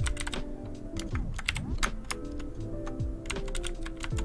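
Typing on a 60% mechanical keyboard with clicky blue switches, taken for Cherry MX Blues: quick irregular key clicks, sparser in the middle and in a dense run near the end. Background music plays underneath.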